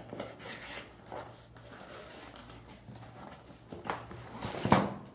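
Cardboard shipping box being handled and opened by hand: the flaps scrape and rub against each other, with a louder cardboard bump and scrape near the end.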